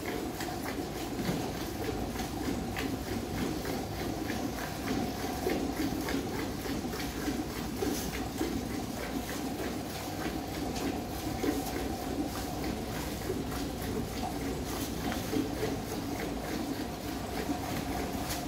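Cow being milked by hand into a steel bucket: repeated squirts of milk hitting the pail, over a steady hum.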